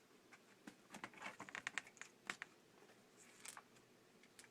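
Faint light clicks and taps of small laptop parts being handled, with a quick run of clicks about a second in and a few single clicks later, the sound of connector plugs and screws being fitted in a laptop's display assembly.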